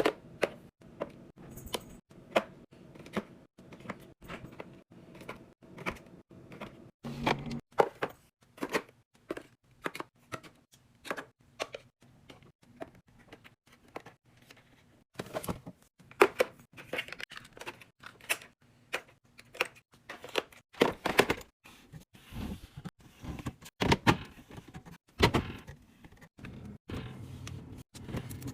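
Containers and food packaging being handled and set down in a fridge: an uneven run of clicks, taps and knocks, several a second, with a few louder thunks.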